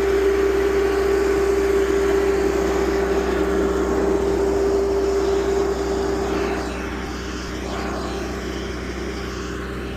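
Bobcat 863G skid steer's engine running with a steady droning tone, easing off and getting quieter about six to seven seconds in.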